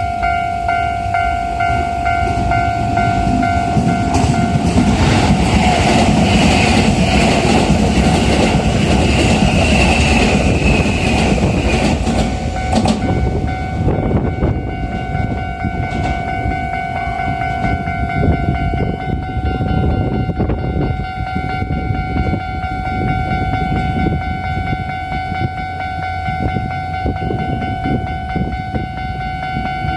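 Japanese level-crossing warning bell ringing steadily while a Toei 5500 series electric train runs over the crossing. The train is loudest from about four to thirteen seconds in, with a slowly falling whine. After that the wheels keep knocking over the rail joints more quietly.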